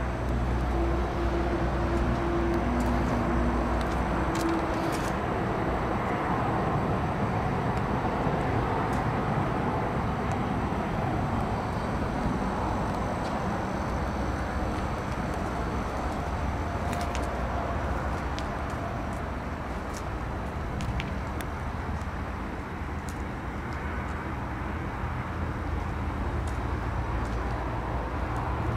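Steady outdoor rumble of road traffic, with a vehicle engine hum standing out and the sound a little louder in the first five seconds or so.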